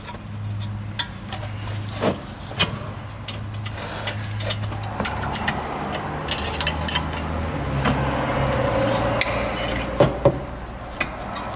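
Scattered metallic clicks and clinks of hand tools on a new brake caliper as its bolts are threaded in and run down, over a low steady hum.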